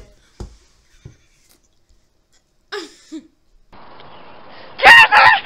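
Near quiet with a few faint knocks and one short vocal sound. Then a steady outdoor hiss starts, and near the end a girl's voice breaks out in two very loud, high-pitched bursts.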